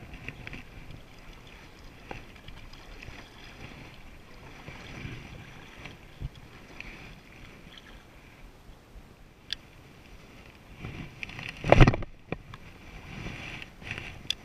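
Kayak paddling: the paddle dipping and splashing in the lake and water lapping on the plastic hull, with scattered small knocks. Near the end there is one sudden loud burst.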